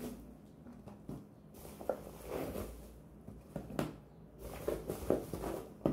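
Small cardboard smartwatch boxes being handled and set down on a table: scattered light taps and rustling.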